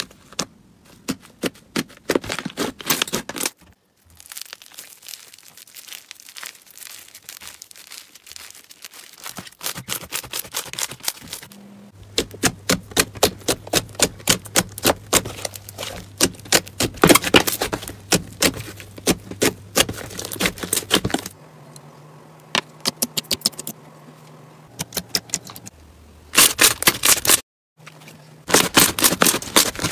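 Hands squishing, pressing and poking slime, giving rapid sticky pops and crackles as trapped air pockets burst. The pops come in dense runs broken by quieter stretches, with a brief silence near the end.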